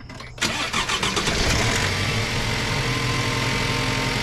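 2018 GMC Canyon's 2.5-litre four-cylinder engine cranking for under a second and catching about half a second in, then settling into a steady idle.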